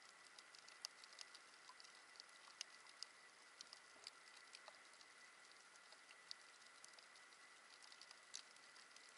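Faint underwater reef crackle: irregular sharp clicks and pops, several a second, the sound of snapping shrimp on the coral. A faint steady high tone runs under it.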